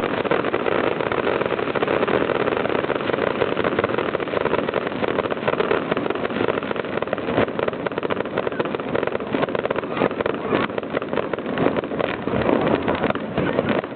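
Fireworks finale: a dense, continuous barrage of shell bursts and crackling pops with no gaps between them.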